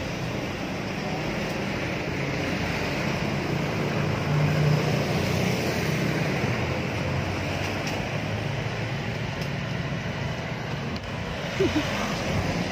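Street traffic: vehicle engines running and passing in a steady wash of road noise, louder for a moment about four seconds in. A short, sharp sound stands out near the end.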